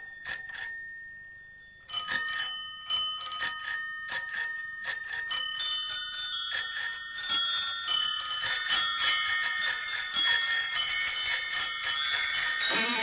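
Bicycle bells ringing as part of a recorded rock song: a few rings, a short pause, then more and more bells ringing together in a thickening jangle. Near the end the band comes back in.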